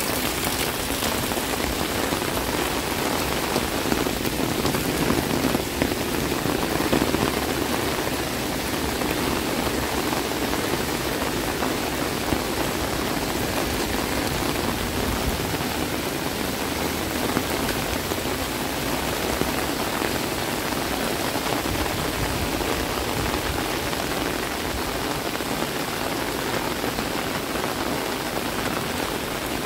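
Heavy rain falling steadily, a dense even hiss of drops striking the ground and surfaces.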